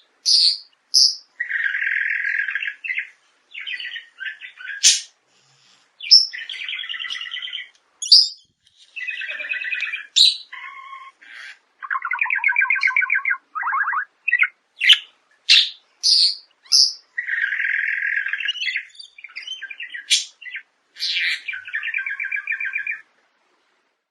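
Birds calling: short, high chirps mixed with harsh, buzzy rasps about a second long, in quick, irregular succession.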